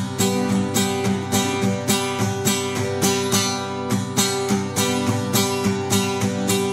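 Acoustic guitar strumming a steady rhythm of about three strums a second over sustained chords: an instrumental break in a folk song, with no singing.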